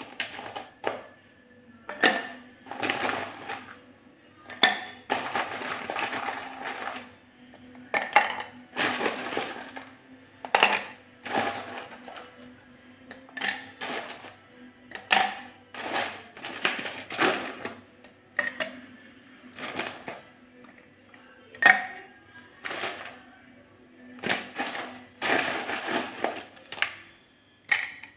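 Ice cubes scooped by hand from a plastic bowl and dropped into tall glass tumblers: an irregular run of clinks and knocks of ice against glass, some ringing briefly, mixed with the rattle of cubes being gathered in the bowl.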